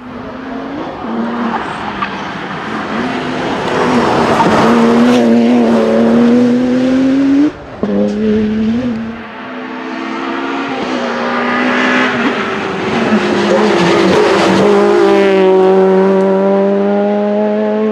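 Rally car engines driven flat out on a tarmac stage. A BMW 1 Series rally car's engine rises in pitch as it accelerates, then cuts off abruptly about seven and a half seconds in. Further hard-revving passes follow, the last of them a Peugeot 206, with the engine note dipping and then holding at high revs near the end.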